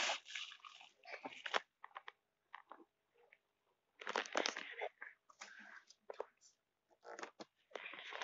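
Irregular rustling, crunching and knocking from handling, in scattered short bursts with quiet gaps between them.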